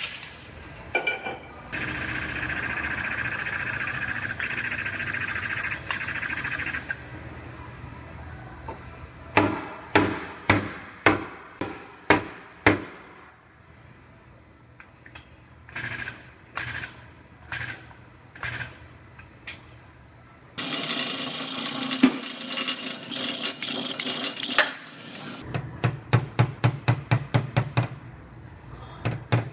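Body-shop work on a car's sheet-metal panels: a few seconds of steady mechanical noise, then groups of sharp hammer taps, another stretch of steady noise, and near the end a fast run of strikes, about four a second.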